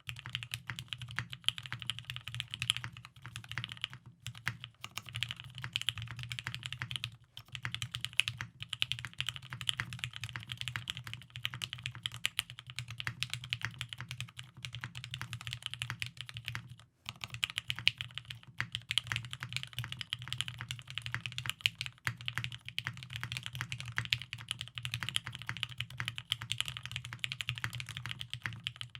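Fast, continuous typing on a mechanical keyboard with lubed Tealios V2 linear switches in an aluminium plate, with G81-3000SDU keycaps: dense keystrokes with brief pauses a few times.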